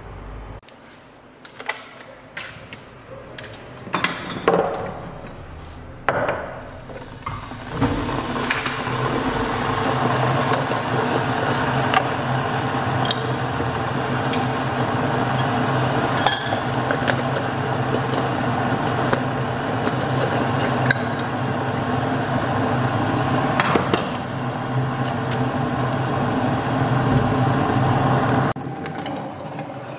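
Several seconds of spoon and glass clinks and knocks from a glass coffee jar and glass mug. Then an electric kettle starts heating, a steady rushing noise with a low hum that cuts off suddenly near the end as the kettle switches off at the boil.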